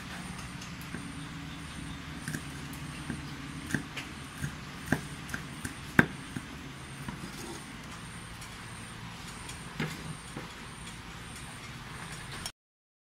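Cleaver chopping red chilies on a wooden chopping board: irregular sharp knocks of the blade on the wood, loudest about six seconds in, over a steady low hum. The sound cuts off abruptly near the end.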